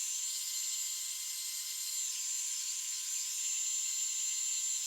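Heat gun blowing steadily with a high, even hiss and a faint motor whine, melting glue sticks in a copper tube.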